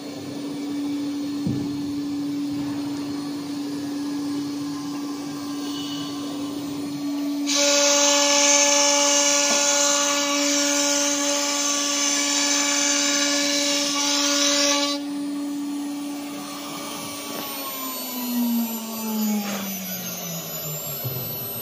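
CNC router's automatic-tool-change spindle running with a steady high whine. For about seven seconds in the middle it gets louder and harsher as the bit cuts into the clamped board. Near the end the spindle spins down, its whine falling steadily in pitch.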